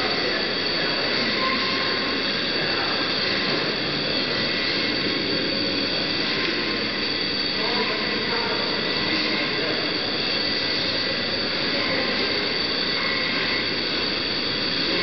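Electric carcass-splitting saw running as it cuts a hanging cattle carcass in half down the backbone: a steady, unbroken mechanical whine with grinding noise.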